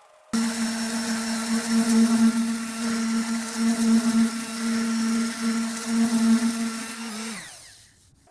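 Small electric motor switched on abruptly, running at a steady pitch for about seven seconds, then switched off and winding down.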